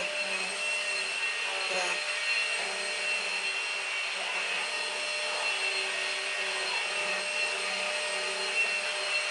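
Numatic Henry Quick cordless vacuum cleaner running steadily, with a constant high motor whine, while vacuuming a sofa.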